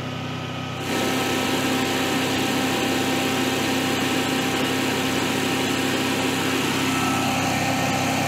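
Generac-built Honeywell standby generator's propane-fuelled engine running at a steady speed. About a second in it becomes louder and brighter, and it then holds steady.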